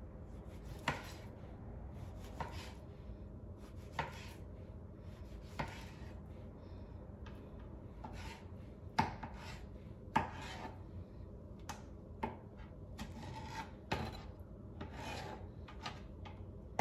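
Kitchen knife slicing tomatoes on a cutting board: a short sawing stroke ends in a sharp knock on the board, about every one to two seconds.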